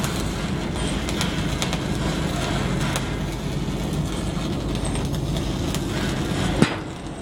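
Electric arc welder's arc crackling and sizzling steadily over a low hum. A sharp click comes near the end, after which it goes quieter.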